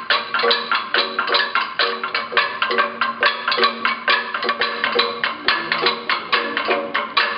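Igorot gangsa (flat bronze gongs) beaten with sticks in a fast, steady interlocking rhythm, many ringing metallic strokes a second, with drumming underneath.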